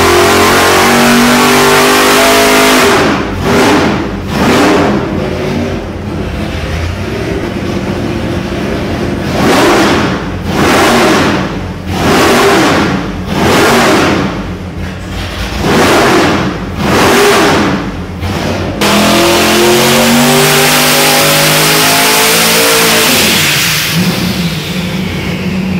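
High-performance V8 engines running on an engine dynamometer. A wide-open pull ends about three seconds in, followed by a series of short throttle blips, each revving up and falling back. From about nineteen seconds a twin-turbo V8 runs at high revs, its pitch climbing and then falling away near the end.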